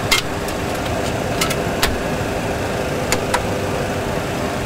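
Steady engine and airflow noise from a Boeing 737 full flight simulator's sound system, with only the remaining engine running after No. 2 was shut down. Several sharp clicks of cockpit switches being operated come through it, most in the first two seconds and two more a little past three seconds.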